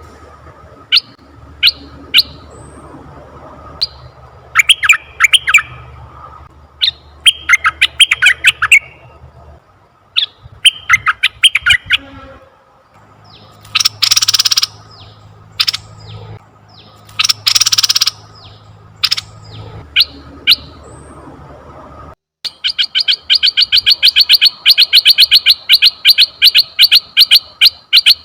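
Red-eyed bulbul calls: sharp single call notes and short chattering phrases, two harsh, noisy bursts in the middle, then a fast run of clipped notes of about six a second over the last six seconds. A faint steady hum runs underneath.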